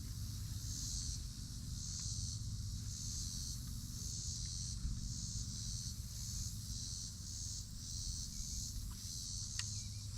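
Insects chirping in a high, pulsing chorus, about two pulses a second, over a steady low rumble.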